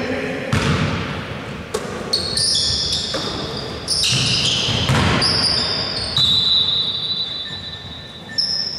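Basketball bouncing and knocking on a wooden gym floor, with high squeaks of players' shoes on the court, in the ring of a large hall.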